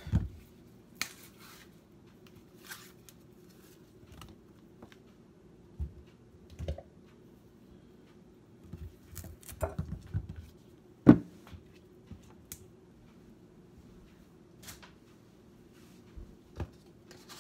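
Scattered light knocks, clicks and rustles of hands handling shake ingredients and containers in a kitchen, with one sharp knock about eleven seconds in, over a faint steady low hum.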